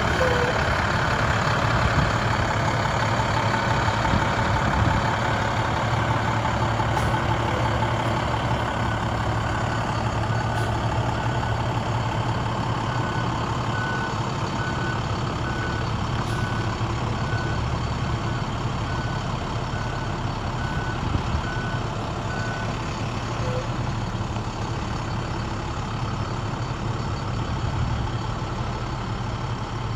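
2007 International 4300 box truck's diesel engine running as the truck is manoeuvred, with a reversing alarm sounding a string of short, evenly spaced beeps through the middle stretch.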